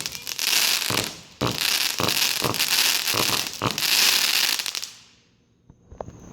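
200-gram consumer fireworks cake firing: a run of about seven sharp shots over a dense high crackle, dying out about five seconds in.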